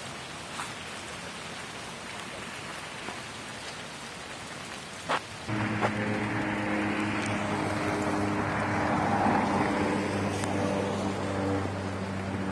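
Rain falling as a steady hiss; a sharp knock just after five seconds in, then the rain grows louder and a steady low engine hum joins it.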